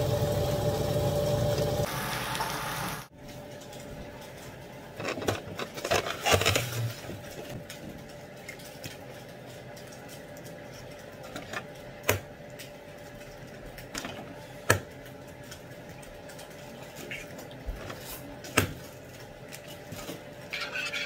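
Eggs being cracked one by one against the rim of a plastic mixing bowl: a few sharp cracks several seconds apart. A steady noise at the stove cuts off about three seconds in.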